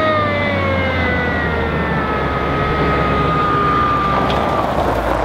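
Supercharged, lifted Mazda Miata driving up, its engine running under a high whine that falls slowly in pitch and fades out near the end.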